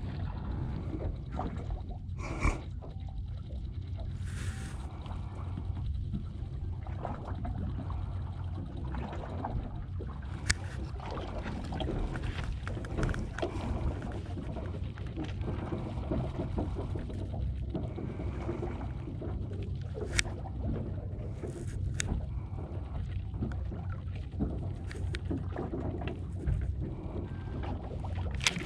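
Sounds aboard a small fishing boat at sea: a steady low rumble with a few sharp knocks spread through it.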